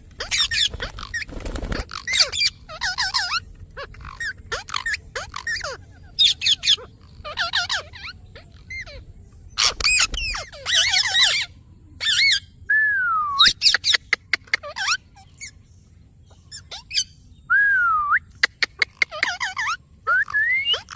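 Parrot chirping and screeching in quick short bursts, with a few whistled notes that swoop down and back up and several runs of rapid clicks.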